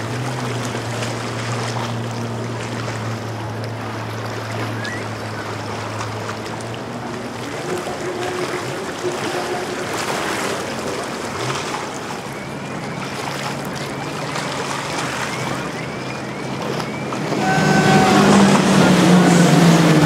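Motorboat engines running through an inlet over the wash of water. A steady engine hum fades out in the first third, and a louder boat engine comes in about three seconds before the end.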